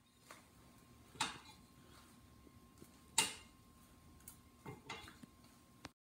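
Scattered metallic clicks and clinks from hands working at a car wheel's hub and lug nuts, about five irregular taps with the loudest about three seconds in.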